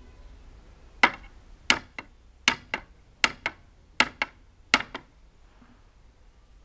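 Claw hammer driving a nail into a wooden plank: about nine sharp blows starting about a second in, several in quick pairs, then the hammering stops.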